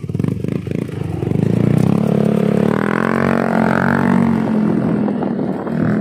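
Yamaha NMAX 155 scooter's single-cylinder four-stroke engine through an aftermarket Yoshimura exhaust, pulling away: it revs up and gets louder over the first two seconds, then runs at a fairly steady pitch as the scooter rides off.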